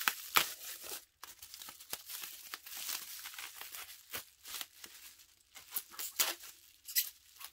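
Plastic bubble wrap crinkling and rustling as it is handled and pulled at, in many irregular short crackles.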